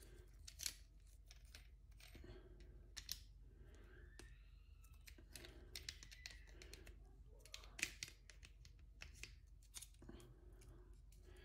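Faint, scattered clicks and handling noise as a small microphone mount is fitted and its knurled thumb wheel is tightened by hand.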